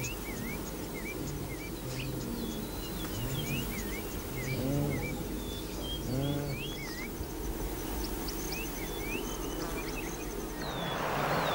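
Savanna field ambience: many birds chirping in short rising and falling notes, with two low animal calls around the middle. An insect trills with a steady fast ticking in the second half, and near the end a rushing hiss comes in.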